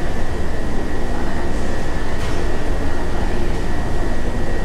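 Steady mechanical drone and hiss with a thin, steady high whine, unchanging in level.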